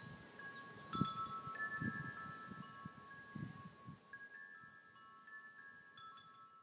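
Soft chimes ringing: a few clear pitches sounding at different moments, each held and overlapping the others. Several dull low thumps come through, the loudest about a second in.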